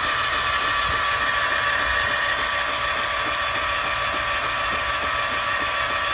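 The 2001 Polaris Magnum 325 ATV's engine being cranked over by its electric starter motor. It gives a steady mechanical whine that stops just after the end.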